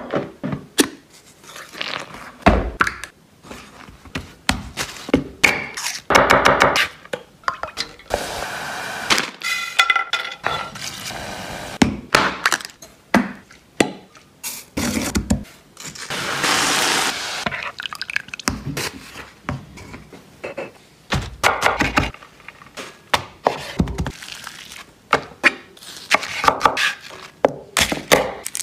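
Kitchen prep sounds: a run of sharp knocks and thunks of hands, utensils and food against a glass mixing bowl and a wooden chopping board, with a steadier rushing noise for about two seconds midway.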